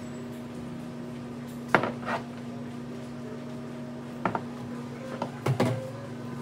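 Dishes and utensils clinking and knocking as they are handled, in a few short clusters, over a steady low hum.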